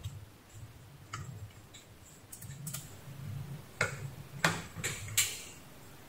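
Scattered light clicks and taps, about six over a few seconds, from a DC barrel plug and its cable being handled, over a faint low hum.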